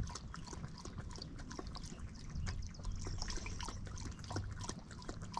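A dog lapping water from a bottle cap held out by hand: a run of quick, irregular wet licking clicks.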